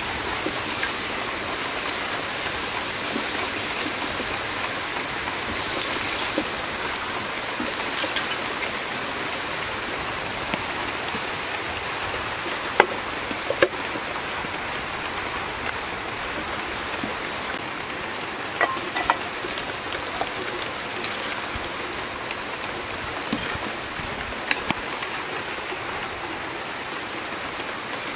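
Steady hiss of rain falling on the ground and surfaces. It is broken by a few sharp clicks and short metallic clinks of cookware, two of them a little before halfway and a couple more later.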